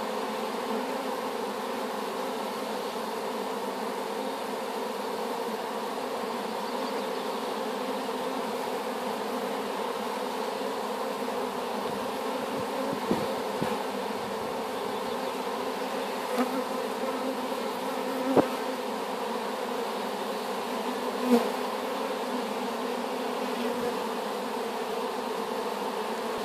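Honeybees buzzing in a steady hum at the entrance of a wooden hive that holds a newly hived swarm, with a few brief louder buzzes here and there.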